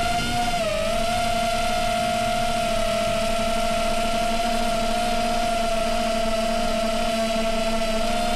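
FPV quadcopter's brushless motors whining at a nearly steady pitch, dipping slightly about a second in, over a low rumble.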